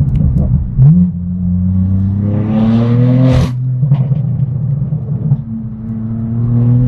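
BMW M4 F82's twin-turbo S55 inline-six, through a straight-piped AWE non-resonated exhaust, accelerating under load. The engine note climbs steadily in pitch, drops suddenly at an upshift with a sharp crack about three and a half seconds in, then climbs again in the next gear.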